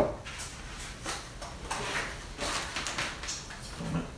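A sharp knock at the very start, then a string of short rustles and scrapes as the printed setup sheet is handled and laid down on a wooden table.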